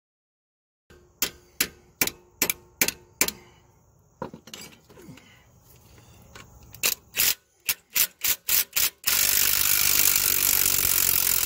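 Sharp hammer strikes on metal, six in quick succession and then another run of them a few seconds later, followed by a power tool running steadily for the last two seconds or so. This is the work of freeing the last broken exhaust manifold bolt from the cylinder head of a 5.3 L V8.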